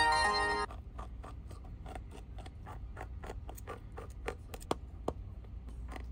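Small Phillips screwdriver backing out the tiny screws of a Samsung Galaxy A54's inner cover plates: a run of light, irregular clicks and scratches from the bit in the screw heads. A brief musical note, the loudest sound, rings out at the start and cuts off after about half a second.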